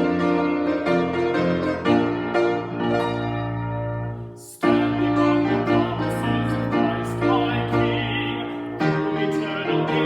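Slow keyboard music with long held chords, breaking off briefly about four and a half seconds in before the next phrase begins.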